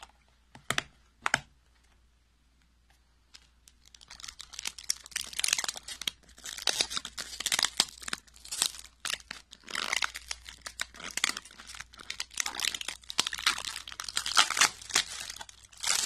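Clear plastic film crinkling and tearing as it is pulled off a plastic deli cup, starting about four seconds in. Two short clicks come before it, about a second in.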